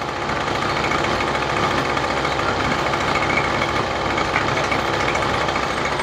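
Toro string trimmer's small petrol engine running steadily while its carburetor rich/lean mixture screw is turned to tune it, close to the right setting.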